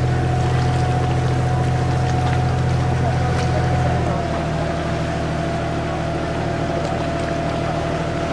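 Canal tour boat's motor running steadily with a low hum and a thin whine above it; the note changes slightly about four seconds in.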